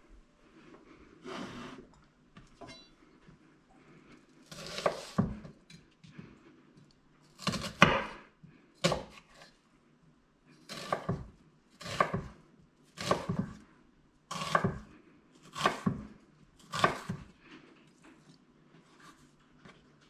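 Chef's knife cutting an onion on a bamboo cutting board: slow, separate cuts, each ending in a knock of the blade on the wood, the loudest about eight seconds in, then about one a second.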